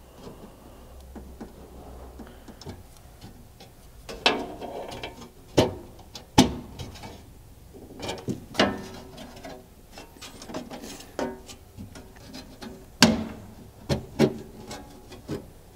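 Irregular clicks, knocks and light scrapes as a tailgate tabletop panel is pressed and pried into the flange of a Ford Bronco tailgate with a small screwdriver, working its tabs down into their slots. A dozen or so sharp clicks come at uneven intervals, the loudest about halfway through and again near the end.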